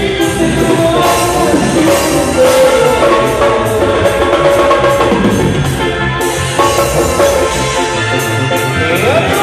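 Live dance band playing loudly over a sound system, with a drum kit keeping a steady dance beat.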